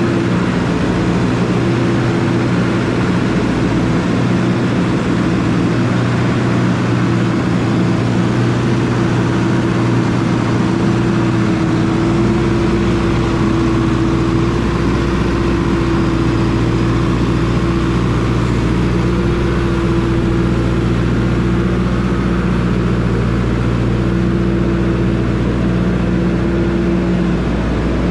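Deutz tractor engine running steadily while it drives a feeder wagon's mixer, which is discharging silage from its side chute. The low drone deepens about halfway through.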